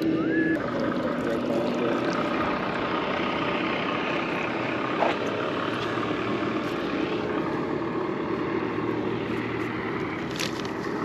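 Boat's outboard motor running steadily under a haze of wind and water noise, with a single short knock about five seconds in.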